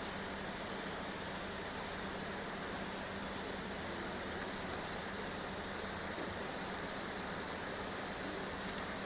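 Steady background hiss with a faint constant low hum and no distinct events.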